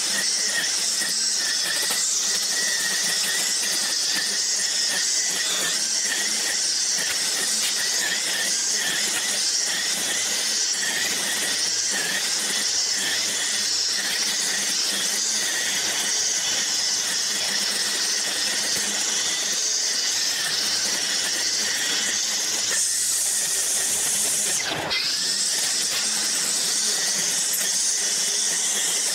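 String trimmer running steadily at speed, its spinning line cutting through long grass, with one brief dip in its sound about 25 seconds in.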